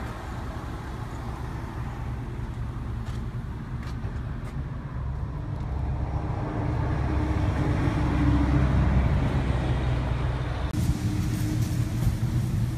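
Low, steady rumble of a motor vehicle running, swelling midway, with a hiss coming in near the end.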